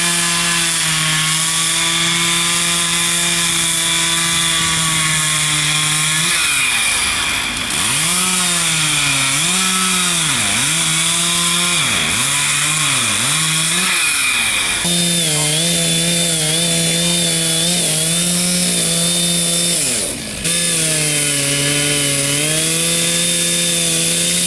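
Large two-stroke chainsaw carving a tree trunk. It runs at high revs and holds steady at first, then its pitch dips and recovers several times in the middle as the chain bites into the wood and bogs down. A brief drop in revs comes near the end.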